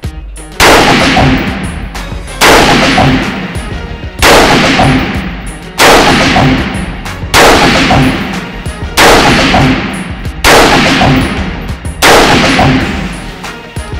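Eight rifle shots from a Robinson Armament XCR-L Competition in .223 Remington with a muzzle compensator, fired at a steady pace about one and a half seconds apart. Each sharp crack echoes and fades off the concrete walls of an indoor range.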